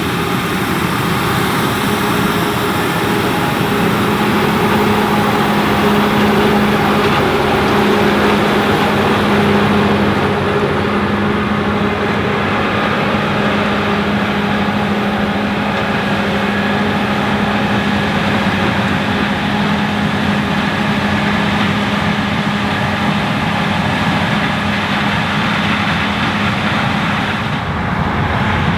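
Fendt IDEAL 9T combine running steadily while harvesting corn, a constant heavy machine drone with a steady low hum. The high hiss drops away about ten seconds in.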